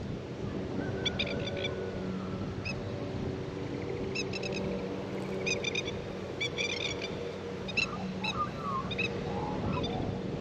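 Lapwings (plovers) give harsh, rapid chattering screeches in short bursts every second or two, warning people away from their chicks. An Australian magpie sings softly underneath, a quiet warble of a few gliding notes, over a steady low hum.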